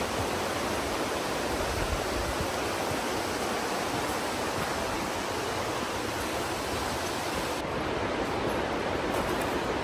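Steady rushing of fast-flowing river water or a waterfall: an even, unbroken roar of water with no other distinct sounds.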